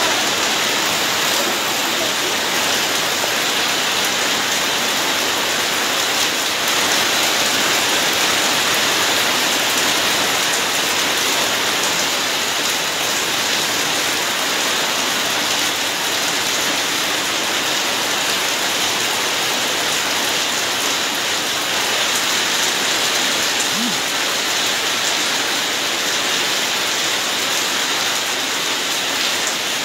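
Steady heavy rain falling and pattering on surfaces.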